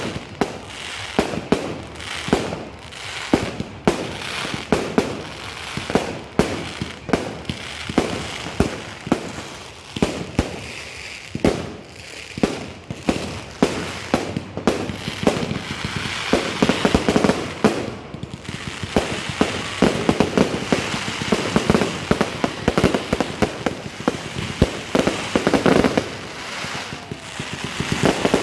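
A fireworks display: a fast, irregular run of sharp bangs from shells bursting, growing into denser crackling volleys about halfway through.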